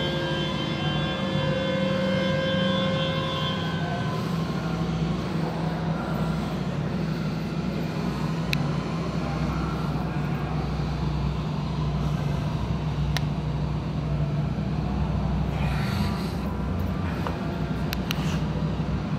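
Steady low mechanical rumble, like a running engine or machinery, with a faint high whine in the first few seconds and a few sharp clicks later on.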